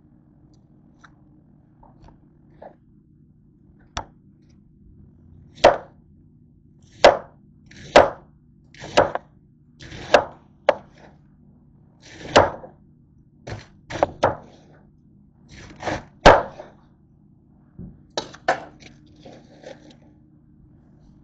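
Kitchen knife chopping through cabbage onto a cutting board: about fifteen separate chops at an uneven pace, starting about four seconds in.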